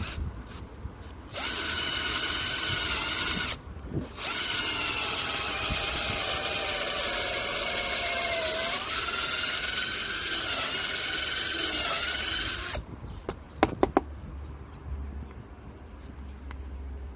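SHAWTY S0006 cordless drill boring into a small block of wood: its motor whines in two runs, a short one of about two seconds and then a longer one of about eight, the pitch dipping and wavering in places as the bit bites. A few sharp knocks follow a second after it stops.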